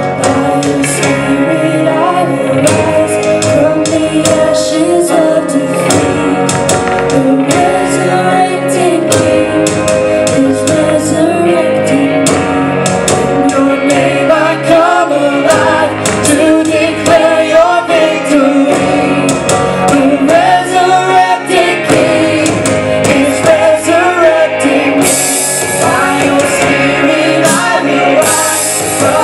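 A live worship band plays a contemporary worship song: electric guitar, bass guitar, drums and keyboard, with male and female voices singing together. Cymbals get brighter and fuller near the end.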